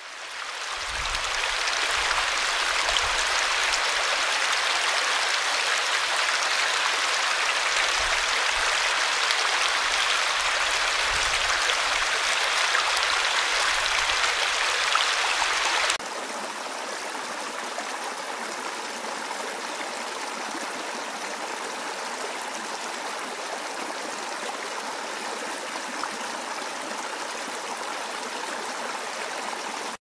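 Stream water flowing. At first it is water spilling over a mossy log into a pool, with irregular low splashing. About halfway through it cuts to a rocky brook rushing over stones, a quieter, steadier hiss.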